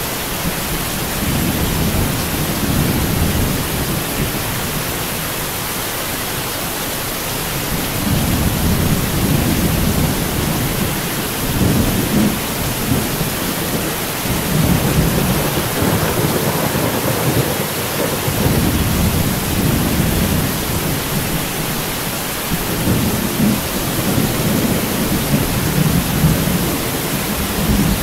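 Steady heavy rain hiss with rolling thunder rumbling underneath. The rumble eases a few seconds in and builds again from about eight seconds, swelling and fading in long rolls.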